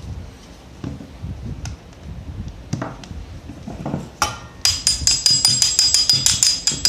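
Hammer striking a pin punch to drive a frame pin out of a blank pistol. A few separate knocks come first, then about four seconds in a quick run of sharp metallic taps, about six a second, with a ringing tone.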